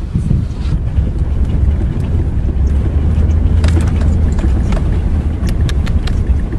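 Strong wind buffeting the microphone: a steady low rumble with hiss, broken by scattered sharp clicks, several of them in the second half.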